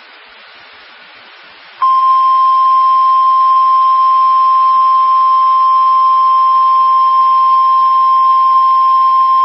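NOAA Weather Radio warning alarm tone: after about two seconds of radio hiss, a single loud, steady high tone starts abruptly and holds unchanged. It signals that a warning broadcast, here a severe thunderstorm warning, is about to follow.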